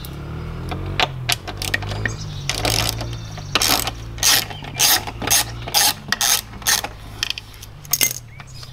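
Socket ratchet with a T25 Torx bit clicking in short bursts, about two a second through the middle, as it backs out the factory license-plate-frame bolts on a motorcycle fender.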